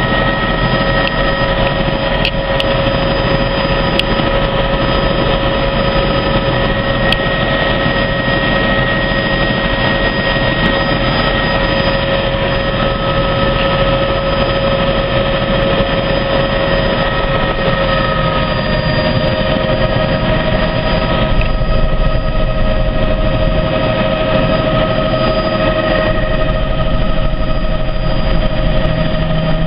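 Helicopter in flight: loud, steady engine and rotor noise with a constant whine, its main tone edging slightly higher about two-thirds of the way through.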